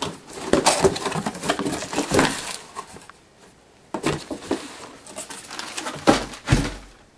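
Wrapping paper tearing and rustling as a large gift is unwrapped by hand, with two heavy thumps near the end.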